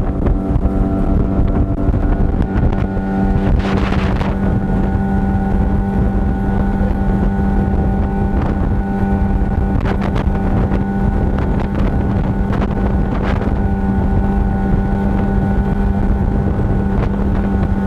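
15 hp outboard motor driving a small boat at a steady, unchanging speed, with wind on the microphone and a few brief rushes of noise.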